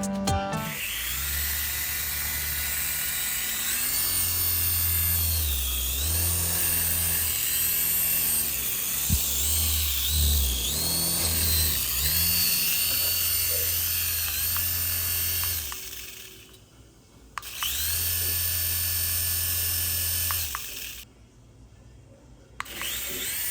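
Small electric motors of a toy remote-control helicopter whirring, the pitch rising and falling as the throttle changes. It stops briefly twice in the last third.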